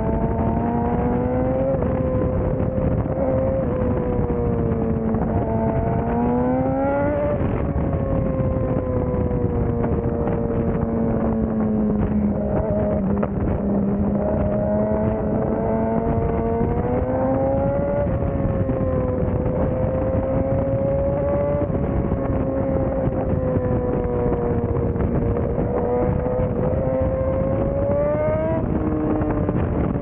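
BMW S1000RR inline-four running through an Akrapovic full-system exhaust under riding load. The engine note eases and climbs again with the throttle, its pitch rising sharply about seven seconds in, again near eighteen seconds and near the end.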